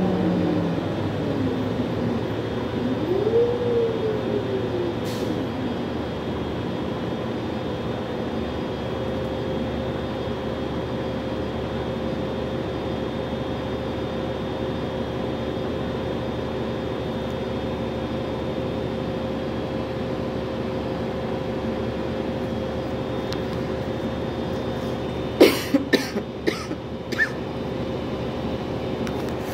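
City transit bus heard from inside the cabin, its engine and drivetrain running. In the first few seconds the pitch falls, then rises and falls again, before settling into a steady hum with a constant whine. Near the end comes a quick run of four or five sharp knocks.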